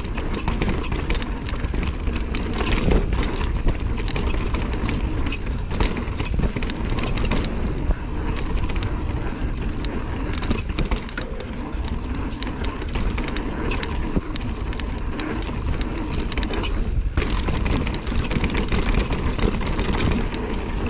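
Mountain bike riding down a dirt trail: a steady low wind rumble on the microphone, tyre noise and a frequent rattle of clicks and knocks from the bike over the ground.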